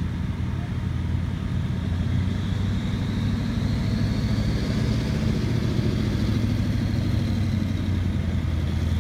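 WWII M4 Sherman tank moving under power, its engine giving a steady low drone that grows slightly louder as it comes on.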